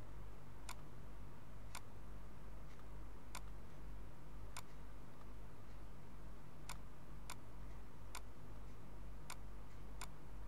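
Computer mouse clicking: about nine sharp single clicks at uneven intervals, over a steady low hum.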